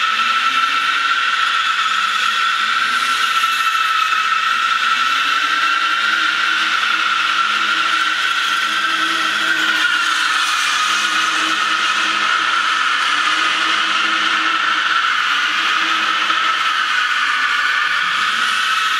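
BMW 3 Series drifting: its tyres give one long, unbroken squeal as the car slides sideways, with the engine running underneath, its pitch rising and falling as the throttle is worked.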